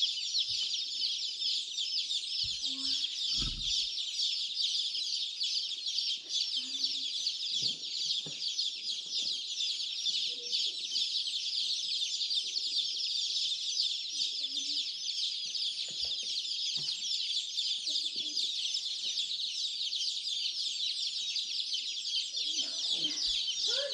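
A brooder full of baby chicks peeping constantly, many high cheeps overlapping into one dense chorus, with a few soft thumps now and then.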